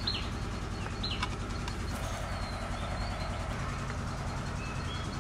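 Steady low hum of an engine running, with a couple of short bird chirps, one about a second in.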